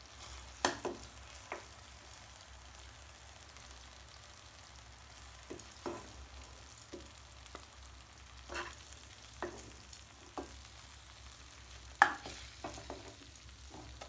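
Thick sugar syrup bubbling and fizzing faintly in a pan, with a steel ladle clinking and scraping against the pan and a glass bowl as cubes are lifted out; about eight sharp clinks, the loudest about twelve seconds in.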